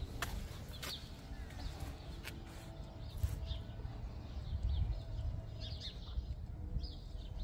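Small birds chirping now and then in short, high chirps, over a steady low rumble, with a few light clicks.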